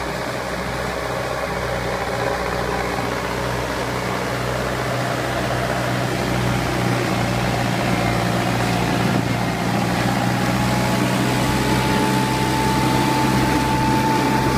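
Farm tractor's diesel engine running under load, driving a rear PTO-powered Denis Cimaf mulcher through low vegetation: a steady engine hum that grows gradually louder. A whine comes in past the middle and rises slightly in pitch.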